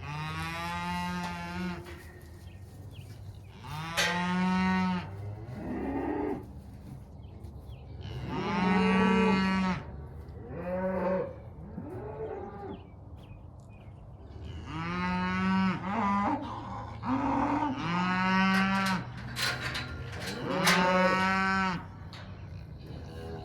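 Cattle mooing: about a dozen moos, one after another and sometimes overlapping, each lasting one to two seconds.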